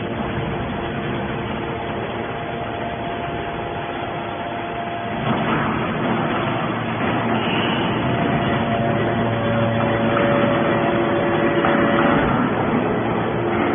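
Hydraulic scrap metal baler running: a steady machine noise with a few held whining tones. It gets louder about five seconds in, where the tones change pitch.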